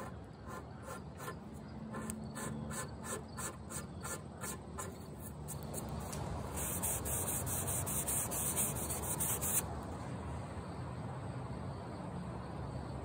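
A hand-held blade scraping a hard fill stick repair flush on walnut veneer, in quick rhythmic strokes about two or three a second, followed a few seconds later by a loud high hiss lasting about three seconds.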